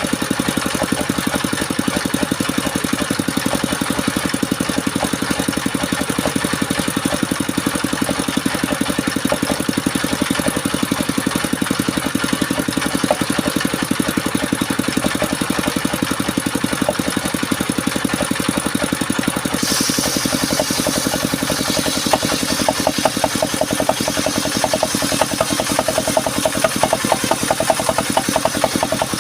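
Engine-powered circular saw for cutting sengon (albizia) wood, its engine running steadily with a fast, even chug. About two-thirds of the way through, a higher hissing noise joins in as the blade cuts into the timber.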